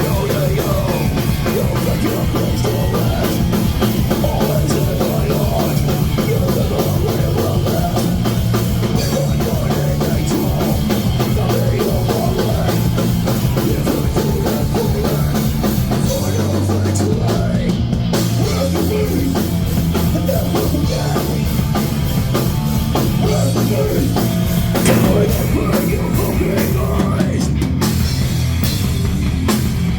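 Loud, heavy hardcore punk music with a pounding drum kit and distorted guitars.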